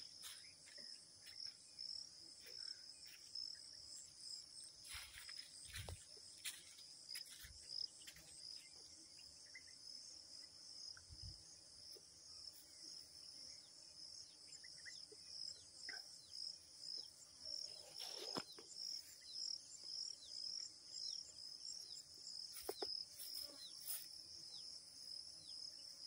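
Faint, steady high-pitched chirping trill of crickets or similar insects, pulsing rapidly without a break, with a few soft knocks from handling scattered through.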